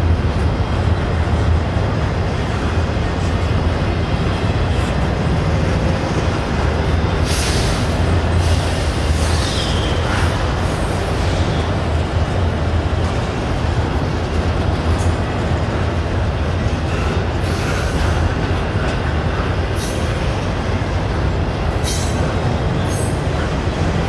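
Double-stack container train's well cars rolling past: a steady rumble of steel wheels on rail, with brief high wheel squeals now and then.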